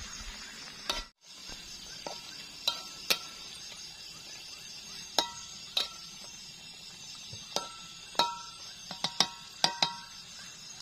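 About a dozen irregular sharp clinks, several with a short ring, from a utensil against a dish while eating. Under them runs a steady high trilling of night insects. In the first second, before a cut, comes the scrape of stirring in a wok over a fire.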